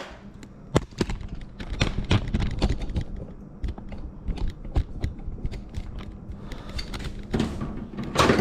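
Irregular clicking and clattering of hand tools being handled, with sharp knocks several times a second.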